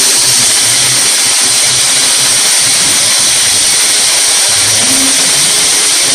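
Loud, steady machine noise with a strong hiss, from dairy milking equipment running during milking.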